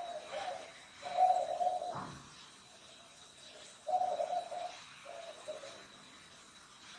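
A dove cooing: four low coos of about half a second to a second each, with the second and third the loudest. A single short knock about two seconds in.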